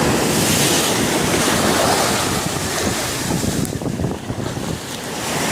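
Sea surf washing onto the shore, with wind buffeting the microphone. The rush eases about four seconds in and builds again near the end as the next wave comes in.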